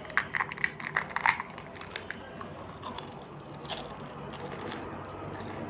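Crunching and chewing of crisp food close to the microphone: a quick run of crunches in the first second and a half, then occasional softer ones.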